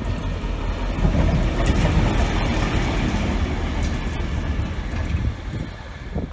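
A DBR-class diesel-electric locomotive running light past at close range: engine rumble and wheel noise on the rails. It grows loud about a second in, then fades near the end as the locomotive draws away.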